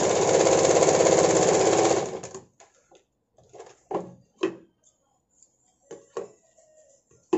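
Sewing machine running at speed, stitching a seam with a fast, even needle rhythm, and stopping about two seconds in. It is followed by a few short rustles and clicks as the fabric is pulled free, and by scissors snipping the threads near the end.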